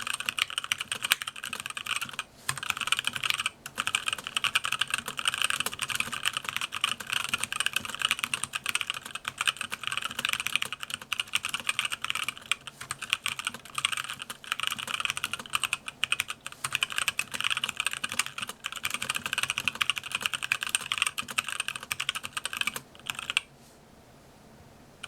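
Fast, continuous typing on a mechanical keyboard with 65 g tactile Zealio switches and DSA PBT keycaps in an aluminum case: a dense stream of keystrokes with a few short breaks. It stops about 23 seconds in.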